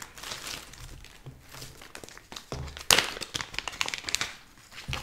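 Clear plastic bag crinkling as it is handled and opened: an irregular run of crackles, the sharpest about three seconds in.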